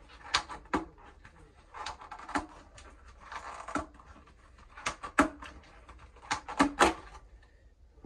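Flexible plastic toilet pan connector (McAlpine) being twisted and pulled apart by hand: the corrugated plastic scrapes and rustles, with a string of sharp irregular clicks, some in quick pairs, as the end collar is worked free of its clip.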